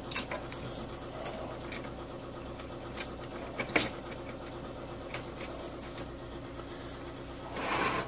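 Sparse small metal clicks and taps as a motorcycle gearbox's selector rod, circlip and special washer are handled and fitted onto the gear cluster by hand, with a sharper click about four seconds in and a short scraping rustle near the end.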